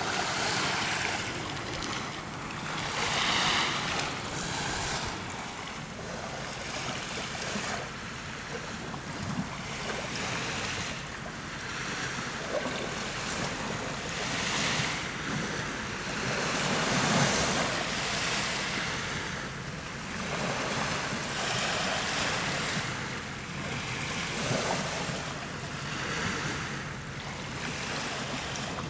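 Sea surf washing onto a beach: a steady rush of noise that swells and ebbs every few seconds as the waves come in.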